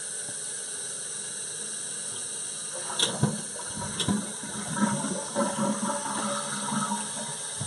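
Toilet flushing through a newly fitted HydroRight dual flush converter handle: two sharp clicks about a second apart as the handle is worked, about three seconds in, then water rushing and gurgling down through the bowl.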